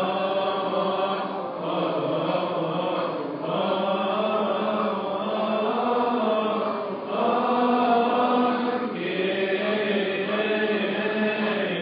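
A congregation of many voices chanting a Coptic church hymn together, singing long held notes in continuous phrases.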